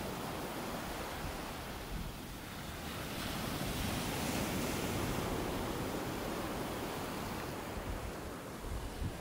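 Steady rushing noise of wind on the microphone and the sea around a small open boat, swelling a little about three to six seconds in.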